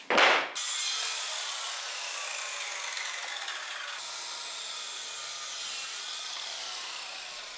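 Corded Powerhouse circular saw cutting through a plywood panel, a steady run of the blade through the sheet that eases off slightly near the end. It opens with a short, loud burst, the loudest sound here.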